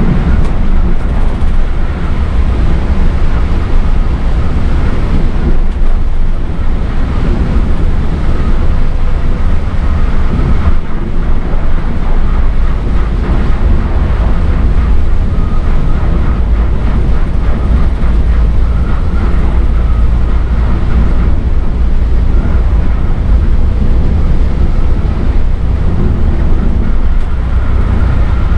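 Steady, loud drone of a Volvo B8R diesel bus driving at speed on the highway: a deep, unbroken engine and road rumble with a hiss of tyre noise over it.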